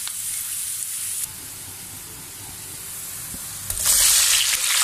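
Sliced onions sizzling in hot oil in a frying pan. About four seconds in, tomato slices go into the pan and the sizzle suddenly gets much louder as they hit the oil and are stirred.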